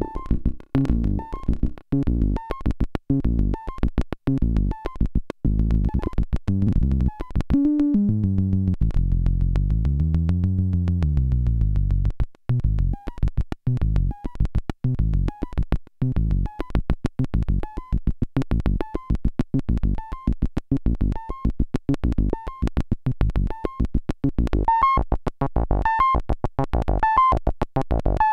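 Korg Monotribe analog synthesizer playing a repeating sequence of short, low notes with the filter turned down. Each note starts and stops with a sharp click. About eight seconds in, a held note bends up and down for a few seconds before the sequence returns. The clicks grow with gate time, and the owner fears they are more than normal and that the unit may be damaged.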